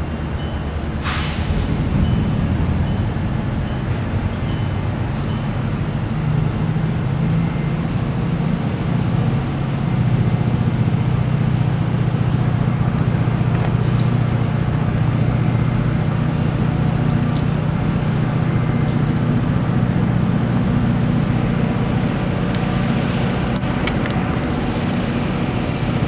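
Diesel freight locomotives running close by, a steady low engine drone that grows louder about ten seconds in.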